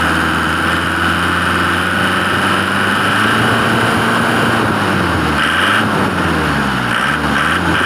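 Isuzu Buddy's 2499 cc four-cylinder diesel engine revved up from idle and held at raised speed for about four seconds, then let fall and blipped up a few more times. It runs smooth, a free-rev check of its condition.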